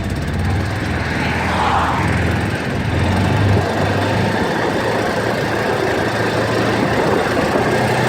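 Arctic Cat off-road vehicle's engine running under way, its pitch rising a little about three seconds in, with wind rushing over the microphone.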